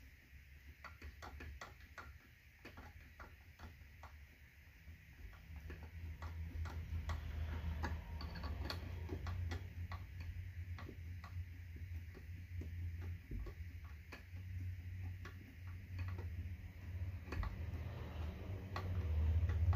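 Hand-turned Phillips screwdriver driving fine-thread screws with washers into the wooden feet of a spinning wheel: many small, irregular clicks and ticks as the screw turns, over a low hum.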